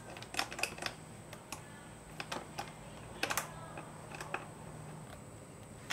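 Scattered light clicks and taps of a T-handle hex key and plastic bodywork as a 5 mm bolt is fitted at the bottom of a motorcycle's radiator side panel, coming in small clusters.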